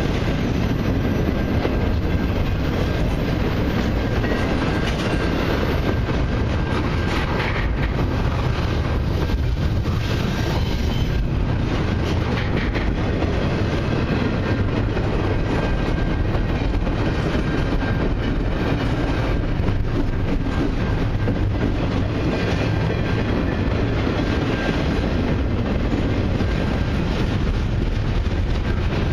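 Double-stack intermodal well cars loaded with containers rolling past close by: a steady rumble of steel wheels on rail that holds constant throughout.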